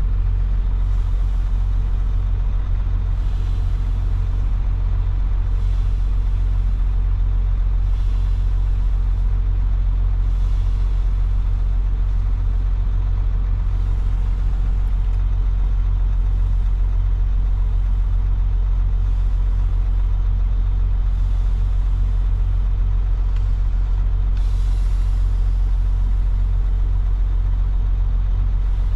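Semi truck's diesel engine running with a steady low rumble, and a faint short hiss that repeats every two to three seconds.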